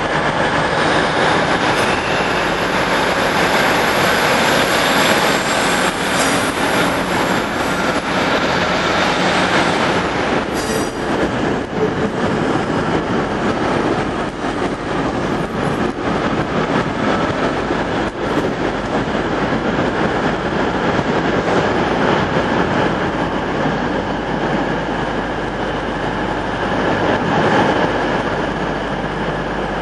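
Class 156 Super Sprinter diesel multiple unit departing, its Cummins underfloor diesel engines running under power over a steady noise of wheels on rail. There is a faint wheel squeal, and a short clatter about ten seconds in.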